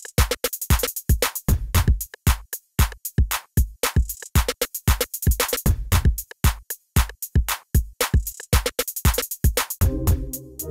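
Background music: an electronic beat of rapid, sharp drum hits. Near the end, sustained pitched chords come in.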